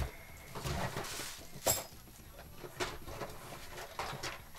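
Rummaging among small hard objects while looking for a screwdriver: a string of separate clicks, clinks and knocks, the sharpest about a second and a half in, with a short rustle just before it.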